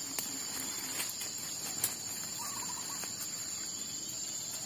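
Steady high insect drone in the undergrowth, with a few rustles and sharp clicks as the fish trap is handled among the grass and ferns. About halfway through, a brief run of short rising bird-like call notes.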